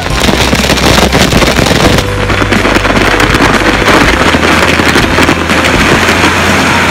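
Loud, steady wash of indoor water-park noise: rushing and splashing water echoing through the big hall, with water-cannon streams spraying close by.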